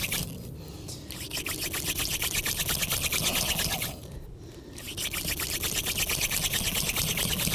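Hand drill fire-making: a wooden spindle spun fast back and forth between the palms, grinding in the fireboard's notch with a rapid, raspy whirring as the hearth heats toward a coal. The sound breaks off briefly twice, about half a second in and again around four seconds in.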